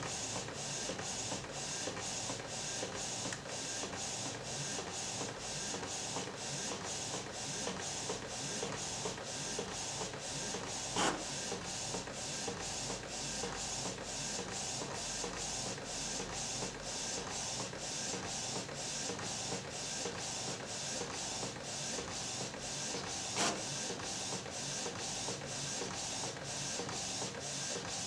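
Printer printing photos onto a sheet, a steady run of evenly repeated passes, with two sharp clicks: one near the middle and one about four-fifths of the way through.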